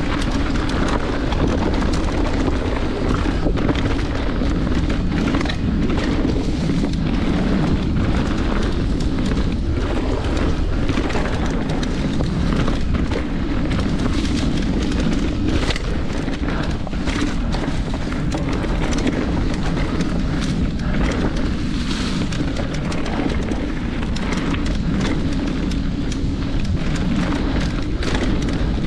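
Mountain bike riding fast down a rocky dirt trail, heard through a GoPro action camera's microphone: steady wind rumble with frequent clicks, knocks and rattles from the tyres and bike over rocks and roots.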